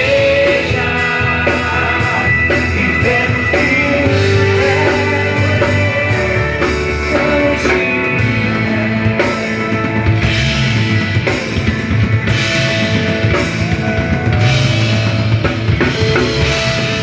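Live band playing a rock-style worship song with a drum kit and guitar, steady and loud, with some singing in the mix.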